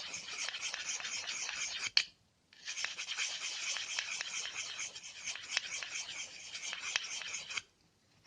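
Needle file rasping back and forth in quick strokes on the hard polymer trigger-group housing of a Hatsan Marine Guard pump shotgun, taking off casting flash that causes light primer strikes. It pauses briefly about two seconds in, and the filing stops near the end.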